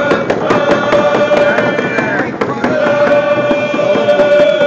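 Nuu-chah-nulth group song: many voices singing together, holding a long note over a steady, even drumbeat.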